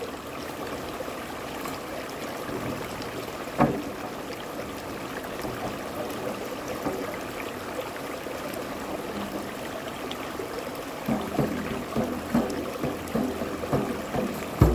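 Shallow stream running steadily over rocks. A single sharp hit on a hand drum comes about three and a half seconds in, and soft, irregular drum taps start near the end.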